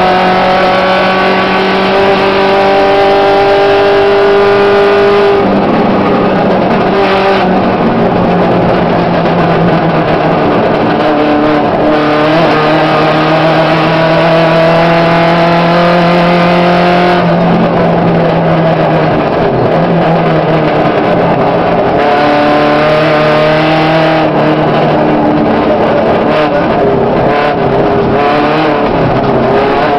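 Volkswagen Gol rally car's engine heard from inside the cabin, driven hard on a gravel stage. The engine note holds steady for stretches, then breaks off and changes pitch every few seconds as the driver shifts and lifts, over a constant rumble of tyres and gravel.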